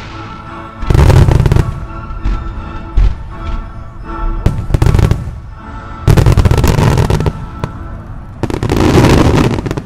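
Starmine fireworks barrage: clusters of loud booms and crackling bursts about a second in, around five seconds, from six to seven seconds, and again near nine seconds, with a single sharp bang around three seconds. Music with long held chords plays underneath throughout.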